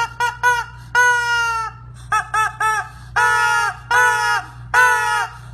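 A bird calling in a siren-like pattern of clear pitched notes: three quick notes, one longer note, three more quick notes, then three longer notes, each rising and falling slightly in pitch.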